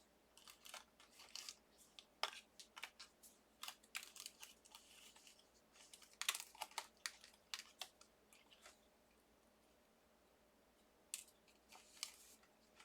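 Faint, scattered rustling, taps and crinkles of cardstock die cuts being handled and sorted, with a quiet pause in the middle.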